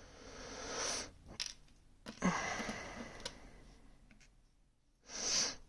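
A person's breathing: a long exhale at the start, a second fading exhale a couple of seconds in, and a short breath near the end. A few faint clicks fall between them.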